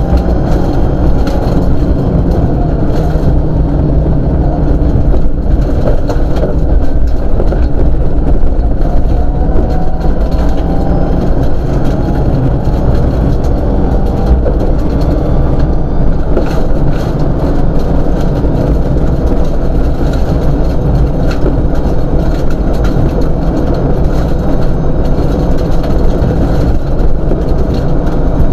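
Rally car driven hard on a dirt road, heard from inside the cabin: the engine running at speed under a loud, steady rumble of road noise, with frequent gravel ticks against the body.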